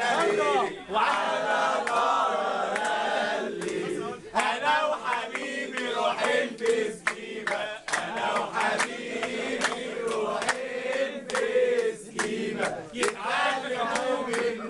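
A group of young men singing and chanting together, with hand claps keeping time at about two a second from about four seconds in.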